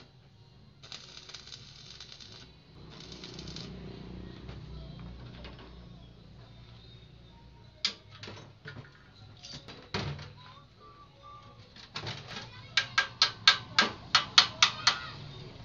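Metal being struck with a hammer while a cracked wheel rim is worked on: a few single knocks, then a quick run of about a dozen loud, ringing blows, roughly five a second, near the end. Two short hisses come early on.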